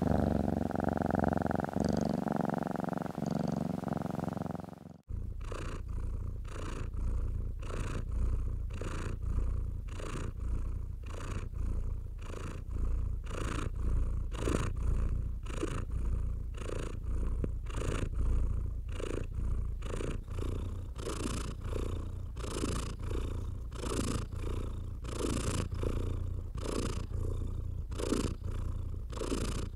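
Domestic cat purring steadily. About five seconds in, it switches to a different, closer purr that swells and fades with each breath, roughly twice a second.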